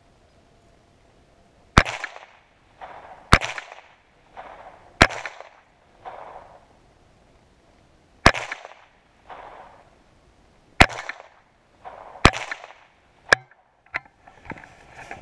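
Seven .22 rimfire shots from a semi-automatic, fired one at a time at an uneven pace, each sharp crack followed about a second later by a fainter echo. Near the end there are shuffling footsteps in snow.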